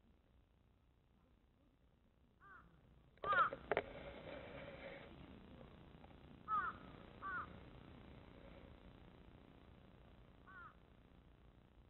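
Crows cawing: about five short, harsh calls spread through, the loudest about three seconds in, followed by a short sharp knock.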